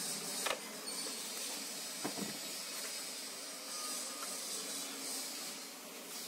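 Steady hiss with a sharp click about half a second in and a few small clicks about two seconds in: a screwdriver working at the carbon-brush holder of a demolition hammer.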